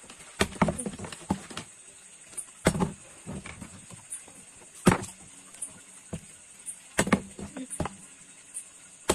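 A small plastic bottle being flipped and landing on a hard surface: a series of sharp knocks, the loudest about five seconds in.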